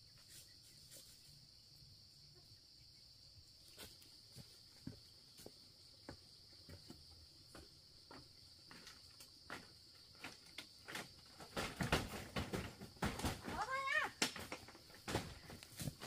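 Insects buzzing steadily in a high drone, with scattered clicks and knocks that grow much busier near the end. A short wavering animal call comes about fourteen seconds in.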